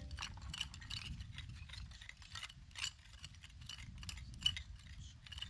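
Pointed hand trowel scraping through loose soil and small stones in short, repeated strokes, about two to three a second, with light clinks of grit. The soil is being scraped up into a dustpan during hand excavation.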